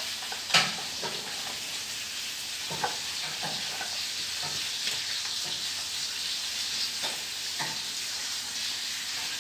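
Dachshund eating dry kibble from a plastic bowl: steady, crackly crunching and mouthing, with a few sharper clicks of the food and bowl, the loudest about half a second in.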